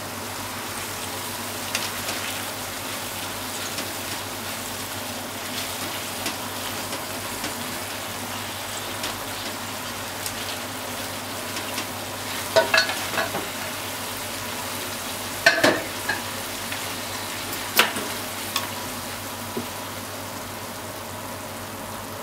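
Pork, shimeji mushroom and onion stir-fry sizzling steadily in a frying pan while it is stirred with chopsticks. In the second half a few sharp clicks come as the chopsticks knock against the pan.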